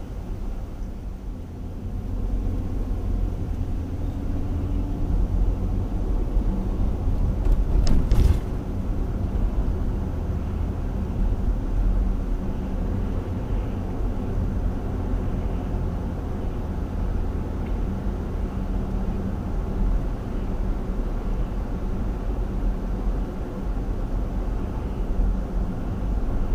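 Steady low rumble of a car driving on the road: engine and tyre noise. A single short sharp knock comes about eight seconds in.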